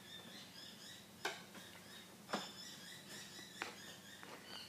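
Light, sharp knocks on a small glass candle jar, three of them about a second apart, as a wick is set in gel wax. Faint chirping and a low steady hum underneath.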